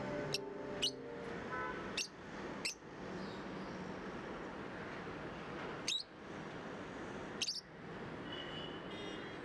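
Small caged parrot giving short, sharp, high-pitched chirps, about six of them, two quick pairs near the start and then two single chirps later, over a steady background hiss. Soft background music fades out in the first second.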